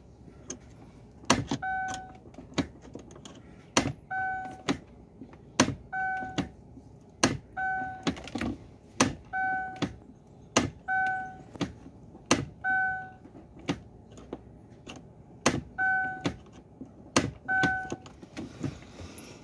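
Sharp metallic clicks and knocks as a long screwdriver is worked against the jammed, broken gear shifter mechanism of a Chevrolet. Most clicks are followed by a short electronic chime that repeats about every one and a half to two seconds and pauses briefly a little past the middle.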